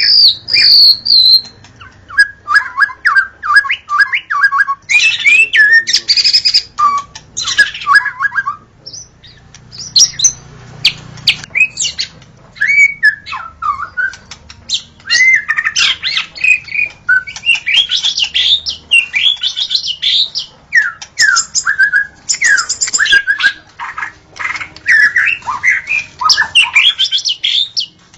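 White-rumped shama (murai batu) singing: a stream of fast, varied phrases of whistled notes, rapid trills and harsher chattering notes, broken by short pauses.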